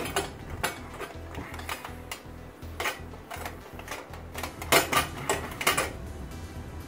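Metal clinks and knocks as a stuck chrome front exhaust header pipe on a motorcycle is wiggled and tugged against the engine, with a loud cluster of knocks about five seconds in.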